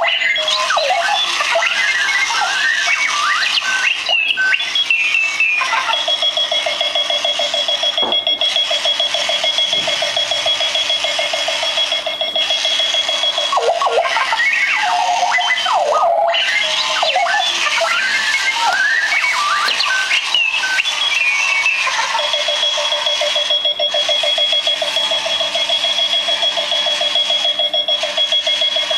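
Runaway wheeled alarm clock sounding its electronic alarm: warbling chirps and bleeps that slide up and down in pitch, alternating with two spells of a steady, rapidly pulsing buzz tone of several seconds each.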